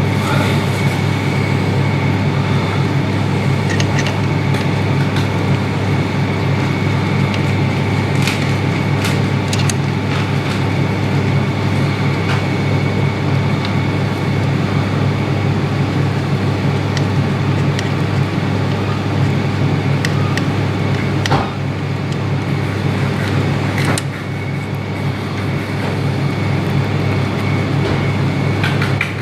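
A steady low mechanical hum with a faint high whine over it, broken now and then by short sharp clicks.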